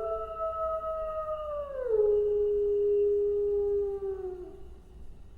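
A wolf howling: one long call that steps down in pitch about two seconds in, holds at the lower note, then fades out.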